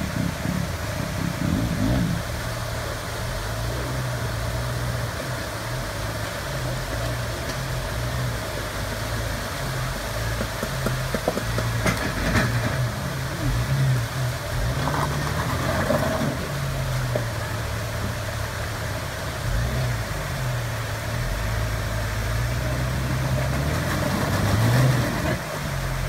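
2004 Jeep Wrangler Rubicon's 4.0-litre inline-six engine running at low revs while rock crawling up a waterfall ledge, its note rising and falling with the throttle over rushing water, with a louder burst of throttle near the end.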